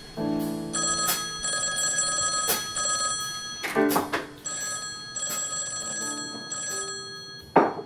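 Desk telephone bell ringing in two long rings of about two seconds each, with a pause between, over background music. A sharp knock comes near the end.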